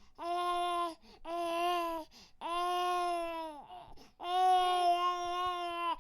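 Infant crying: four wails in a row with short breaths between them, the last one the longest and loudest.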